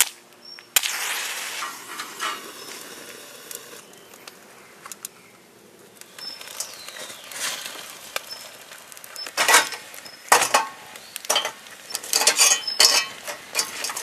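Kindling fire in a stainless-steel wood-burning camp stove: a click about a second in and a brief hiss as the twigs catch, then the fire crackling, with sharp clinks of tongs and wood against the steel stove in the last few seconds.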